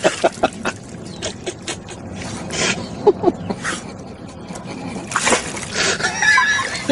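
A dog splashing into water as it topples off a concrete ledge, about five seconds in.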